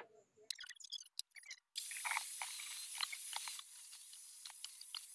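A few clicks and clinks of metal tools being handled, then, a little under two seconds in, an angle grinder grinding against a steel motorcycle shock part held in a vise. The grinding noise is steady and bright, and eases slightly about halfway through.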